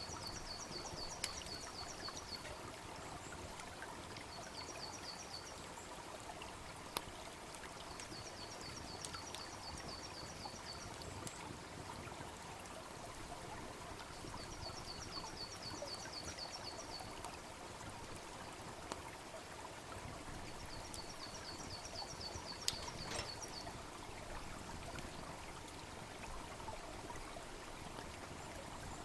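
A small brook babbling steadily beside a wood campfire, with a few sharp pops from the burning wood. A high, quick trill of about ten notes comes back five times, every few seconds.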